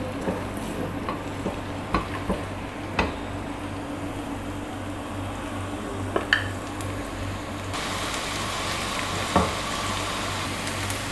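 Chopped onion sautéing lightly in hot oil in a frying pan, a steady sizzle, with a spatula scraping through it and tapping the pan a few times as it is stirred. The sizzle gets louder after about eight seconds.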